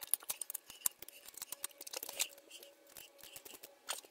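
Wrench ratcheting as the crankcase bolts are tightened: a string of sharp, irregular metallic clicks, with a louder click near the end.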